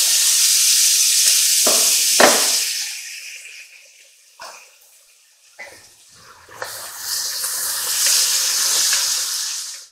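Diced onion sizzling in hot olive oil in an aluminium pot, with a couple of sharp knocks of a utensil on the pot about two seconds in. The sizzle dies down for a few seconds, then comes back as the onion is stirred, and cuts off suddenly at the end.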